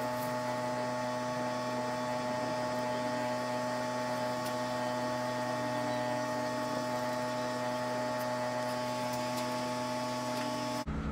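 A steady electrical hum made of several fixed tones, unchanging throughout. It starts and stops abruptly, as if laid in over an edit.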